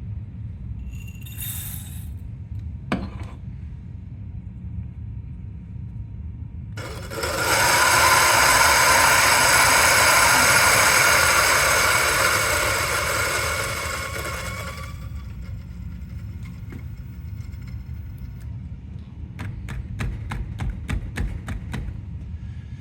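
Turin DF83V flat-burr coffee grinder running at 700 RPM, grinding a 21 g dose of medium-roast beans for about eight seconds: a steady motor whine with a grinding rasp that eases off as the burrs run empty. A quick run of light taps follows near the end.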